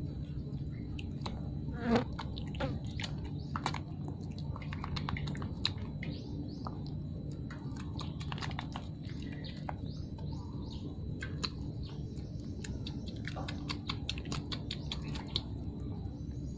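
Puppies suckling at their mother's teats: many quick wet smacks and clicks, over a steady low buzz.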